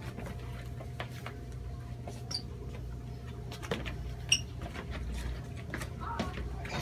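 Shuffling, footsteps and small knocks of a few people moving about and walking out, with a couple of short high squeaks, over a steady low hum.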